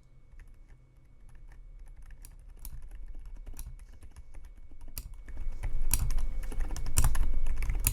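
Typing on a modded silent mechanical keyboard with Outemu Silent Gray tactile switches, O-rings, a taped PCB and a rubber-dampened plastic case. The keystrokes are muted clicks, nice and quiet, coming faster and louder in the second half, with a few heavier strokes mixed in.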